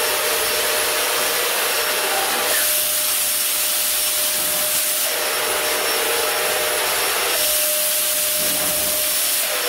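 Electric shoulder-carried disinfectant fogger running: a steady motor hum under loud rushing air as it blows out mist, like a vacuum cleaner in reverse. Twice, for a couple of seconds each, the hiss turns brighter and sharper.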